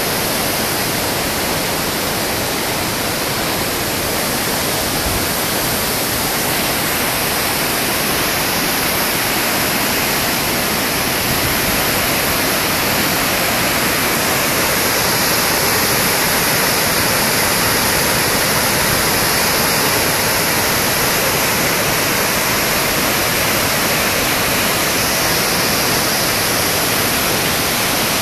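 Barron Falls in full flood: a steady, loud rush of floodwater pouring down the gorge, an even wash of noise without a break.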